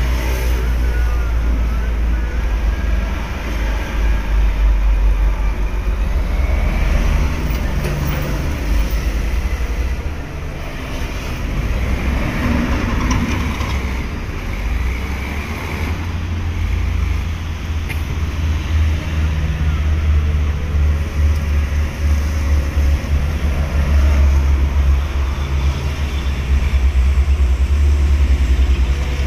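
Forklift engine running with a steady low rumble as it carries a stack of timber planks.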